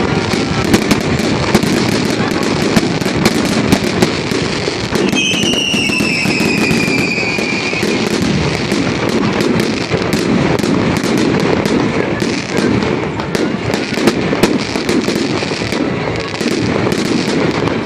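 Fireworks salute: a dense, continuous crackling and popping of bursting shells, with a falling whistle about five seconds in.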